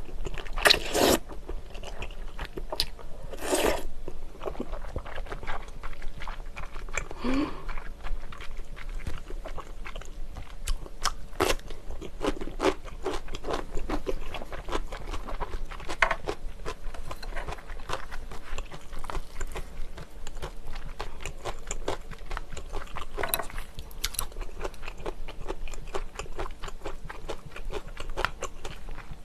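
Close-miked chewing of grilled eel: a long run of small wet mouth clicks with occasional louder bites and crunches.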